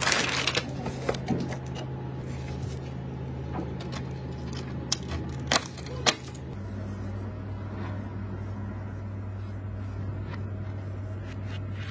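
Plastic anti-static bag crinkling as a graphics card is unwrapped, then a few sharp clicks a few seconds later as the card is handled and fitted into the case, all over a steady low hum that drops lower about halfway through.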